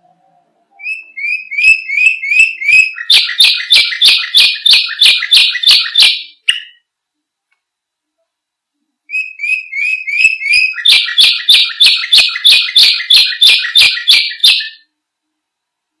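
Domestic canary singing two phrases, each opening with a few short rising notes and then a fast even trill of repeated notes, about four a second. A pause of about two seconds separates the phrases, and the song stops a second before the end.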